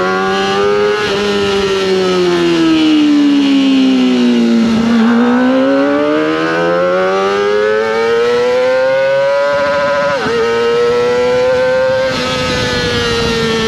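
Kawasaki ZX25R 250 cc inline-four engine revving very high with a whining note. Its pitch sinks over the first few seconds, climbs steadily for about five seconds, drops sharply for a moment about ten seconds in, then holds high.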